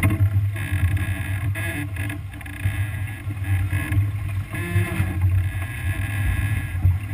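Wind buffeting the microphone over water washing along the hull of a sailboat heeled under sail, with a few short knocks on deck.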